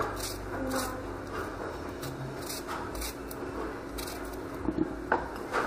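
Small kitchen knife slicing through a peeled cucumber held in the hand, a short crisp cut every half second or so.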